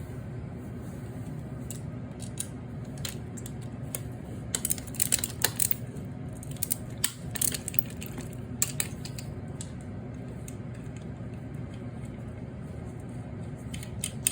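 Metal clicks and clinks from hand tools and motor parts being handled while a fan motor is taken apart, bunched in the middle, over a steady low hum.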